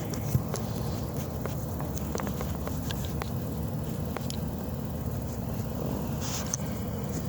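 Light plastic clicks and rustles of a cabin air filter being worked into its housing groove, over a steady low hum.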